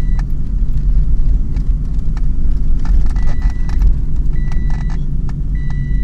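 Ford Explorer's engine and drivetrain drone heard inside the cabin while crawling over a rough dirt track, with loose things in the cabin clicking and rattling over the bumps. From about halfway, a short high-pitched tone sounds every second or so.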